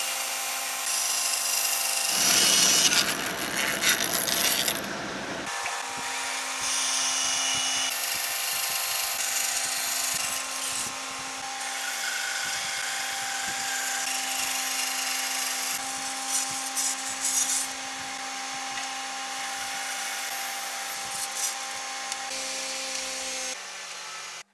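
Bandsaw running with a steady motor hum while its blade cuts through wooden planks. The cutting rasp is loudest about two to five seconds in, then goes on more evenly, and the sound falls away just at the end.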